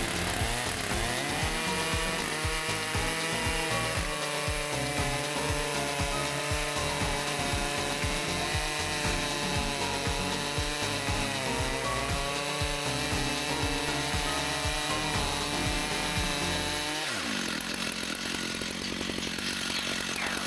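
Large two-stroke chainsaw running at full throttle while cutting through ash wood, its pitch dipping as it is loaded in the cut. About 17 seconds in the throttle is let off and the engine winds down.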